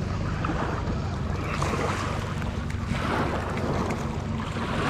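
Wind buffeting the microphone, with water lapping, over a steady low engine hum.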